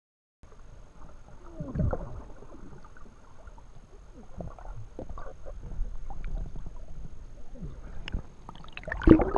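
Muffled underwater sound heard through a camera's waterproof housing: low swishing and knocks of water as a swimmer moves close by. About nine seconds in, a louder splash as the camera breaks the surface.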